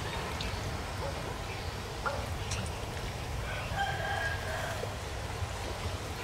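A rooster crowing once, about four seconds in, over a low steady rumble.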